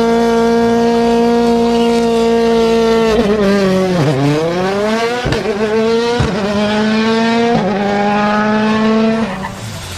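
Car with a racing exhaust running hard at high revs. It holds one steady pitch for about three seconds, then the revs drop and climb again several times, with two sharp cracks in between, before fading near the end.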